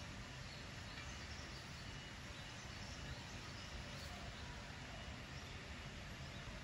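Steady low room noise with a faint hiss, and no distinct sound standing out.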